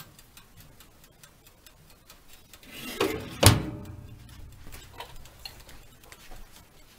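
Mechanical timer of a small electric countertop oven ticking steadily. About three and a half seconds in, the oven door is shut with a sharp clank.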